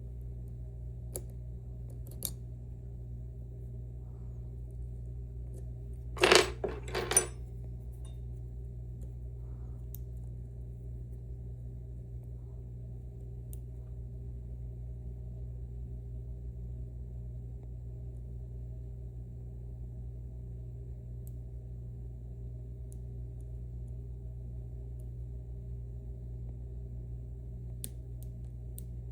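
Metal lock-picking tools clinking against a dimple lock: a brief cluster of sharp clinks about six seconds in, with a few faint ticks before, over a steady low hum.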